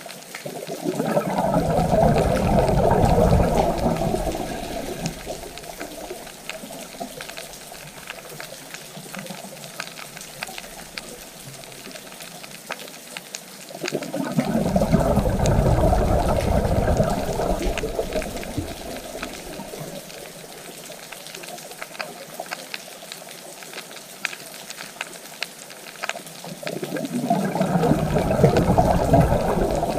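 Water rushing in three slow swells, each building and fading over a few seconds, about thirteen seconds apart, with faint crackling clicks running between them.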